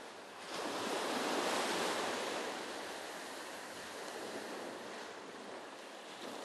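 Sea waves washing in, one surge building about half a second in and easing off into a steady wash of surf.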